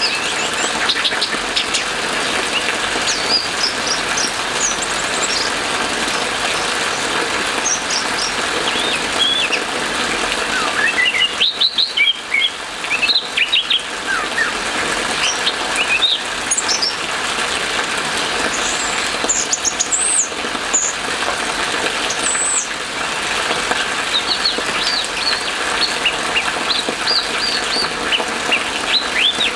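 Orange-headed thrush singing in scattered phrases of short, quickly rising and falling notes, with a busier run near the middle, over a steady hiss of rain.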